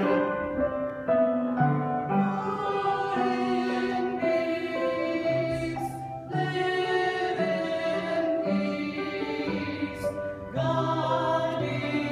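Mixed-voice church choir singing in sustained chords, with short breaks between phrases about six and ten seconds in.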